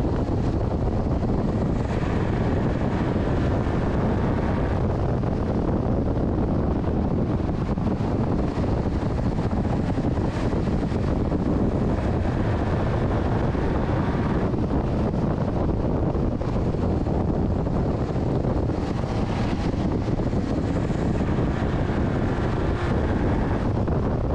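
Race truck's engine running hard at racing speed, heard from a hood-mounted camera, with heavy wind buffeting the microphone. The sound is a loud, steady rush, with a faint higher whine coming and going every few seconds.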